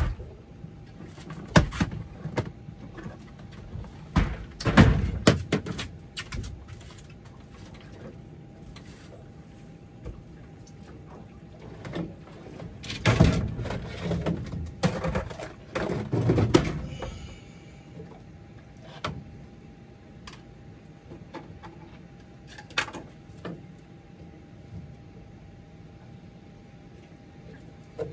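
Knocks, clicks and clatter of fishing gear being handled on a boat, in two busy spells near the start and about halfway through, with a few single knocks later. A faint steady tone runs underneath.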